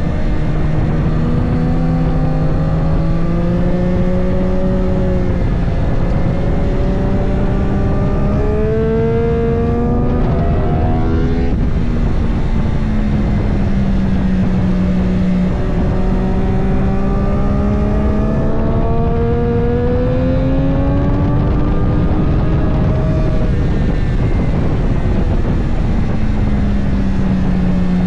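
Triumph 765 Moto2 three-cylinder race engine with a Spark exhaust running hard on track. Its pitch climbs for several seconds at a time, dips briefly at each gear change, and falls away once about twelve seconds in before building again.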